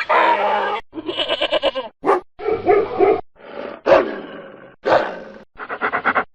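A rapid run of different recorded animal calls, about seven short clips one after another, each starting and stopping abruptly.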